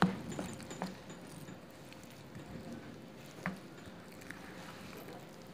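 Flat spatula stirring thick pancake batter in a bowl, with a few light knocks and scrapes against the bowl, the sharpest right at the start.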